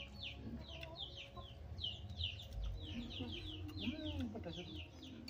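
Chickens calling: a steady stream of short, high, downward-sliding chirps, several a second, with some lower clucks around the middle.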